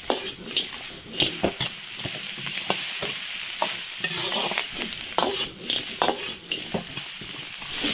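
Chicken pieces sizzling in hot oil in a large iron wok while a metal ladle stirs them, scraping and knocking against the wok again and again at an uneven pace.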